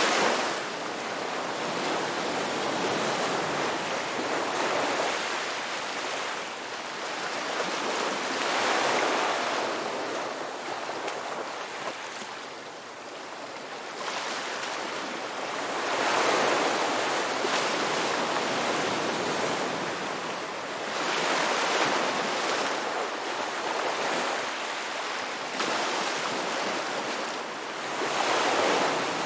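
Ocean waves breaking on a beach, each surge rising and falling away every five to eight seconds over a continuous wash of surf.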